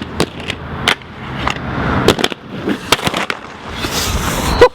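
Aggressive inline skates rolling on pavement, the wheels and frames clacking sharply over the ground, with one loud hard impact near the end.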